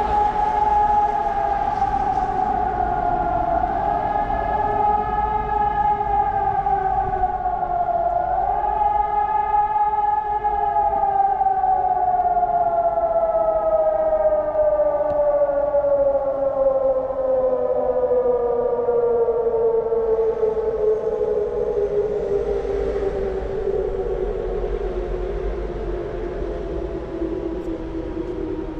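Civil-defence warning siren sounding a test alarm: a strong steady wail that dips and recovers twice, then from about a third of the way in slowly sinks in pitch as it winds down.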